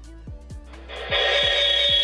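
Audio feedback squeal from the newly connected camera-and-TV setup: about a second in, a loud, steady high-pitched ringing tone starts and holds. Background music with a steady beat runs underneath.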